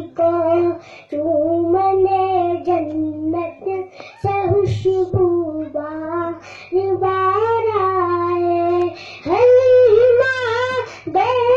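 A young boy singing a naat, an unaccompanied Urdu devotional poem, into a microphone in long melodic phrases with short breaks for breath. About nine seconds in his voice climbs higher and louder for the next line.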